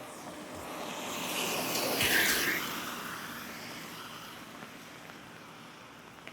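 A vehicle passing on a wet road: the hiss of tyres on water swells, peaks about two seconds in, and fades away.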